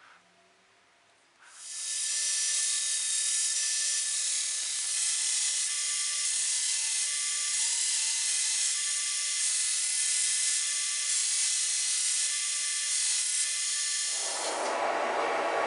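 Belt grinder running, with a steel axe head held against the abrasive belt, throwing sparks: a steady high hiss of grinding with a whine, starting about a second and a half in. Near the end it gives way to a lower, even rushing noise.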